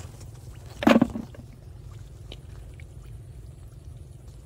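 A hand splashing in shallow muddy water, one brief loud splash about a second in, then a few faint ticks over a steady low rumble.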